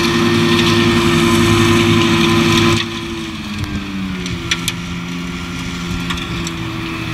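Tractor engine and rear-mounted flail mulcher running under load with a steady pitch. About three seconds in the sound drops in level and its pitch sinks a little, then holds steady.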